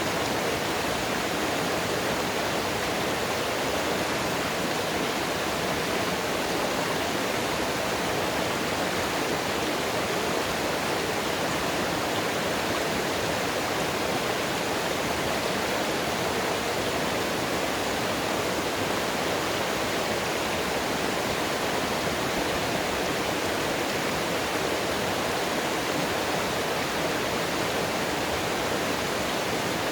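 Running water of a mountain stream, a steady, even rush with no breaks.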